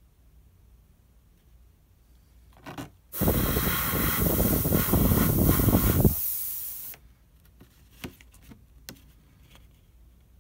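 Iwata Eclipse HP-CS airbrush spraying a test patch of mixed paint. A short puff comes first, then a hiss of air and paint lasting about four seconds, with a deeper rush of air in its first three seconds, before it cuts off.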